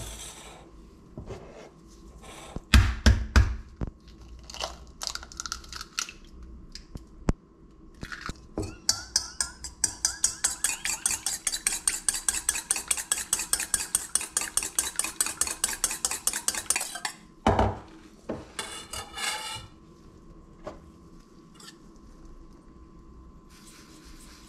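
A whisk beating egg in a stainless steel bowl: a long run of quick, even clinking strokes, about four a second. Loud knocks and clatter of the bowl come before it and just after it stops.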